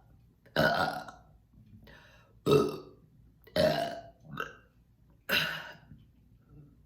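A woman forcing up a run of burps after drinking carbonated kombucha: five short, abrupt burps about a second apart, the fourth one small.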